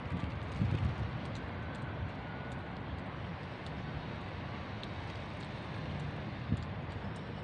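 Wind buffeting the microphone outdoors: an uneven low rumble over a steady background hiss, with a few bumps near the start.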